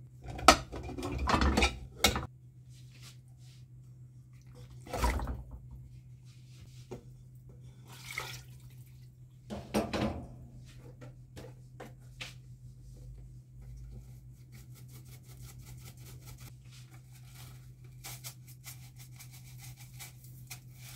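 Kitchen clatter of dishes and a metal pot being handled on a counter: a few sharp knocks and clinks in the first half, then quieter light clicks, over a steady low hum.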